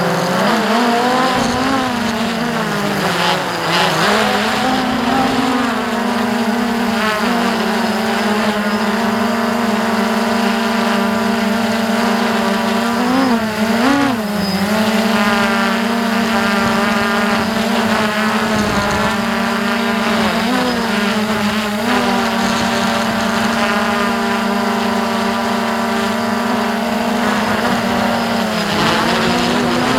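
Hubsan H109S X4 Pro quadcopter's motors and propellers whining steadily in flight, heard up close from its onboard camera. The pitch wavers and swells briefly about a second in and again around fourteen seconds in.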